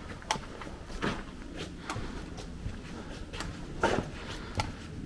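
Footsteps on the sandy, gravelly floor of a slot canyon, an uneven walking pace of about one or two steps a second, with a heavier step a little before four seconds in.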